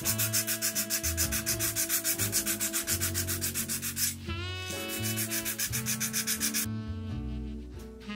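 Rapid back-and-forth hand sanding of a steel toe plate's edge set into a rubber half sole, with small abrasive paper, about five strokes a second. The rubbing stops briefly a little after four seconds, runs again for about two seconds, then stops near the end.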